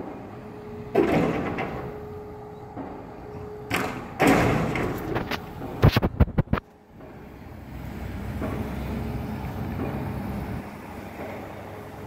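Pile-driver hammer blows echoing along a street: heavy thuds with a ringing tail about a second in and around four seconds, then a quick run of sharp strikes near the middle. A steady low traffic rumble fills the second half.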